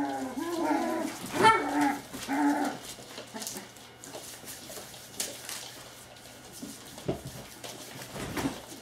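Springer spaniel puppies whimpering and yapping, with one sharper yelp about a second and a half in, during the first few seconds. After that they go quieter, leaving scattered light clicks and scuffling.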